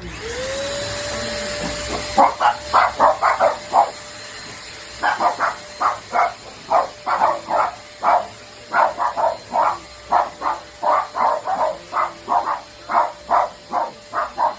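Handheld cordless mini vacuum cleaner switching on, its motor whine rising briefly as it spins up and then running steadily. From about two seconds in, a dog barks over it again and again in quick, short barks.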